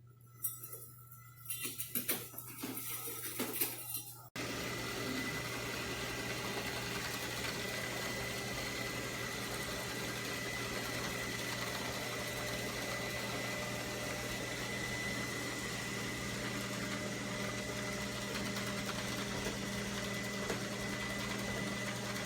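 Robot vacuum-mop running: a few scattered clicks and knocks, then a steady, even whir with a thin constant high tone from its motor and fan.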